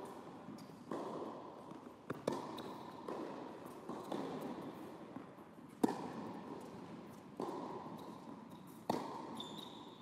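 Tennis rally on an indoor hard court: sharp knocks of the ball off the rackets and the court, about every second and a half, each ringing on in the hall's echo.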